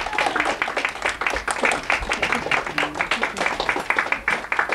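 A small audience applauding: many quick, irregular hand claps, with a few voices mixed in.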